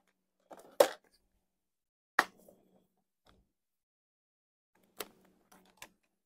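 A few sharp clicks and light taps of small metal square driver bits being handled and compared for size, the loudest about two seconds in, with near silence between them.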